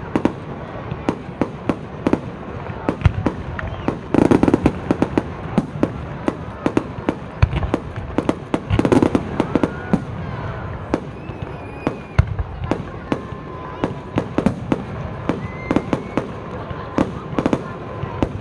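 Fireworks going off in rapid succession: a steady stream of sharp bangs and crackles, with heavier clusters of booms about four and nine seconds in.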